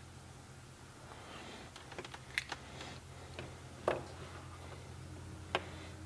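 Faint handling noise of small electrical parts on a wooden bench: a handful of sharp plastic and metal clicks and taps from multimeter test leads, clip leads and a 9-volt battery, the loudest about 4 s in, over a light rustle.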